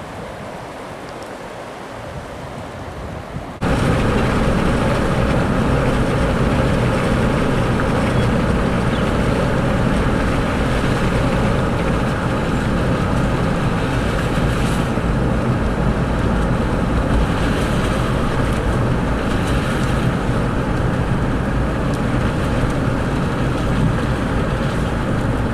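Wind and rushing floodwater for the first few seconds. Then, about three and a half seconds in, it switches suddenly to the loud, steady engine hum and road noise of a moving vehicle, heard from inside the cab.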